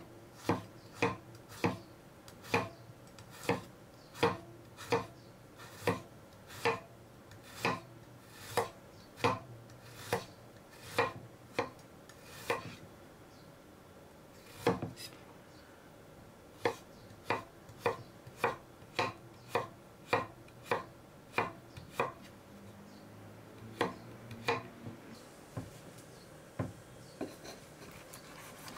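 Kitchen knife slicing a garlic clove into thin rounds on a wooden cutting board, each cut ending in a sharp knock of the blade on the board, a bit more than one a second, with a short pause about halfway. Near the end the knocks give way to fainter, irregular ticks.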